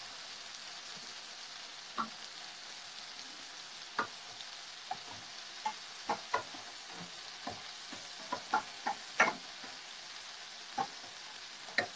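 Fish and scallops sizzling as they sear in a hot pan, a steady hiss broken by about a dozen short clicks and taps as the pieces are turned over.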